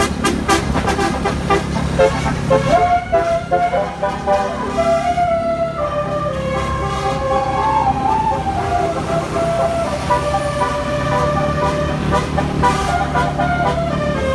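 Telolet musical horn playing a tune: held, horn-like tones stepping from pitch to pitch, over the low rumble of the vehicle's engine running.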